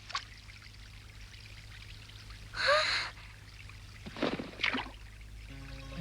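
A short gasp with a brief rising pitch, then two quick breathy puffs of breath. Soft plucked-string music comes in near the end.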